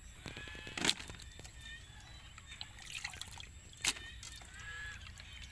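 Water trickling and splashing as hands stir and lift sliced potatoes in a steel pot of rinsing water. Two sharper splashes stand out, about a second in and again near four seconds.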